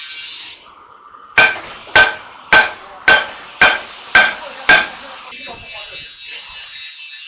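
Hammer striking metal seven times at an even pace, about two blows a second, each blow ringing briefly.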